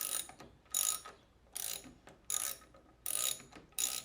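Hand ratchet wrench clicking through short strokes, about one every three-quarters of a second, six times, while a bolt is turned on the 5.7 Hemi's phase limiter.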